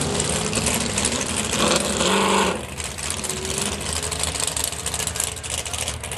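Engine running at a steady pitch, with a louder passage of stacked tones about two seconds in.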